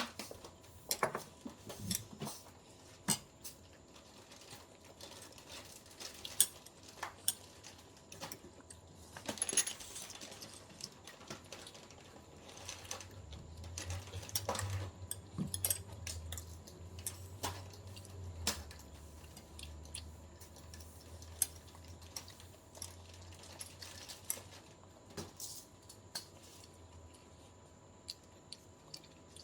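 Light clicks and clinks of eating utensils against a plate while sushi is being eaten, scattered irregularly, with a low rumble through the middle stretch.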